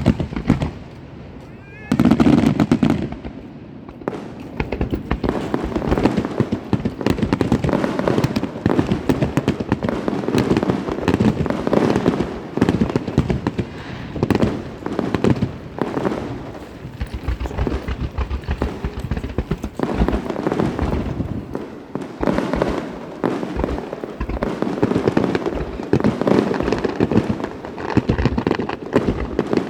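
Fireworks display: a dense, continuous run of bangs and crackling, with a sudden loud burst about two seconds in.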